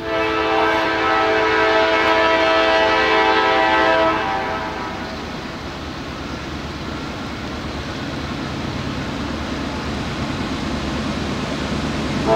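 Norfolk Southern freight locomotive's multi-chime air horn sounding one long blast of about four seconds, its warning for the grade crossing. After it, the low rumble of the approaching diesel locomotives grows steadily louder, and the horn starts again right at the end.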